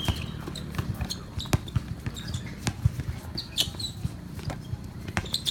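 Basketball game play on an indoor court: a ball bouncing and thudding at an irregular pace, with a few short high squeaks.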